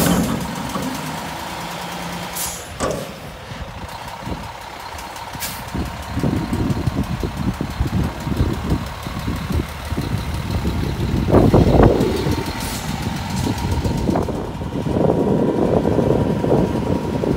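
McNeilus front-loader garbage truck working its carry can: the diesel engine revs under hydraulic load as the forks lift and cycle the can, with a few sharp metal bangs in the first seconds and a steady thin whine underneath. The engine noise swells loudest around the middle and again near the end as the truck pulls away.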